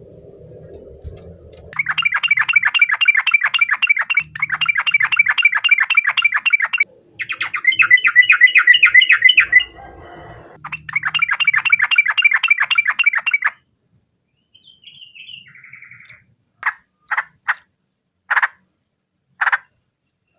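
Yellow-vented bulbul (trucukan) calling in rapid chattering runs of repeated notes, four runs of two to three seconds each. Near the end it gives a few single sharp notes.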